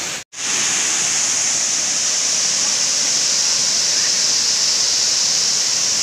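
Waterfall's steady rush of falling water. It cuts out for a moment just after the start, then resumes slightly louder.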